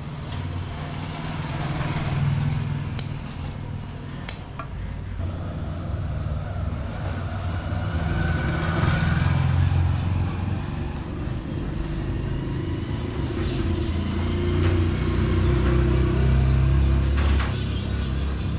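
Low rumble of a running motor vehicle engine, growing louder after about halfway, with two sharp snips of scissors cutting leather in the first few seconds.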